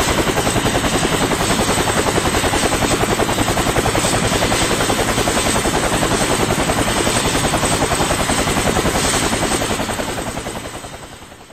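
Helicopter in constant flight, its rotor blades chopping in a rapid, even pulse over the engine's steady noise, fading out over the last two seconds.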